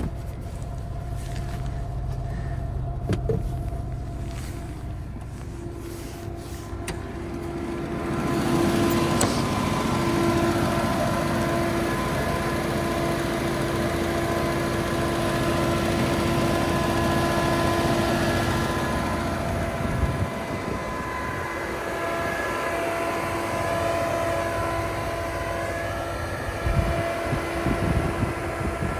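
Lada Niva's 1.7-litre fuel-injected four-cylinder petrol engine idling steadily. About eight seconds in it becomes louder and brighter, with several steady whining tones over the running.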